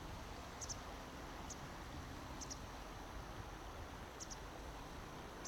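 Outdoor ambience: a steady low rumble and hiss, with short, high-pitched double chirps about once a second, five in all.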